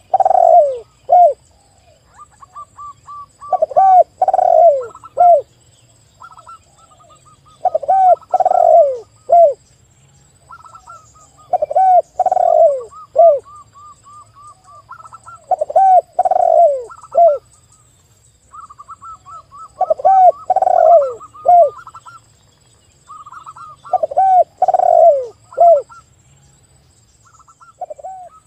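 A spotted dove and a zebra dove calling together. A phrase of three or four loud, arched coos comes about every four seconds, with runs of quick, higher staccato notes filling the gaps between them.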